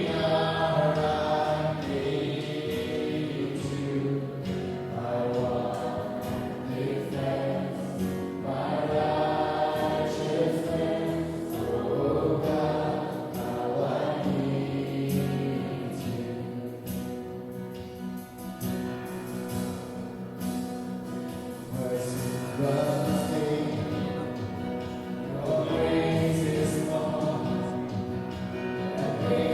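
A choir singing a slow worship song with musical accompaniment, in long phrases over held chords.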